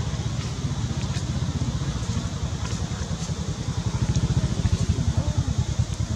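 A small engine running steadily with a rapid low throb, with a few faint ticks over it.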